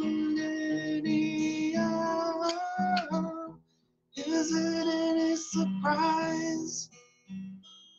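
Fingerpicked acoustic guitar with a voice singing long held notes; the music breaks off for a moment about halfway through, then resumes.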